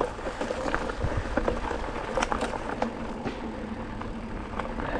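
Mountain bike on a rocky trail: clicks and knocks of the bike rattling over rough ground above a steady low rumble.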